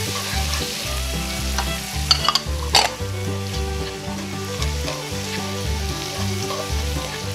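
Pork, shrimp and sliced onion sizzling in oil in a frying pan as they are stir-fried with chopsticks, the bánh xèo filling being partly cooked. A few sharp clicks of the chopsticks against the pan come about two to three seconds in.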